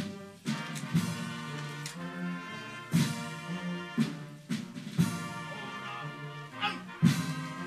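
Brass band playing slow, sustained music, with a drum struck steadily about once a second.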